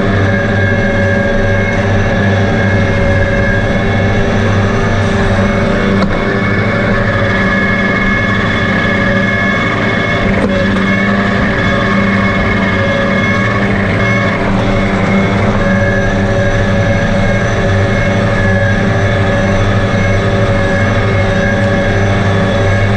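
Tractor engine running steadily at a constant speed under mowing load, driving a Pöttinger Novadisc disc mower.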